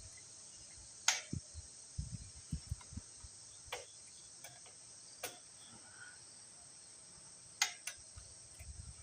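Steady chirring of crickets, with a few sharp light clicks and soft taps from small metal parts of a generator's governor arm and spring linkage being handled and fitted.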